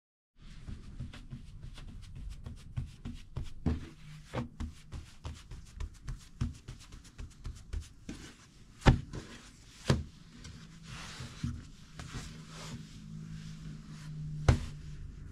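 Kitchen handling sounds: irregular light taps and clicks, with sharper knocks about nine and ten seconds in. A low hum sounds through the later part and stops with a knock near the end.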